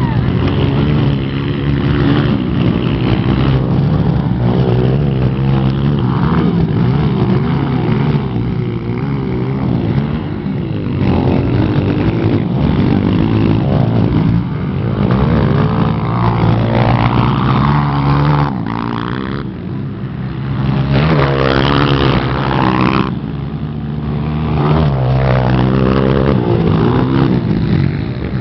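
Motocross motorcycle engines racing, their pitch rising and falling again and again as the throttles are opened and closed. The sound drops briefly about twenty seconds in.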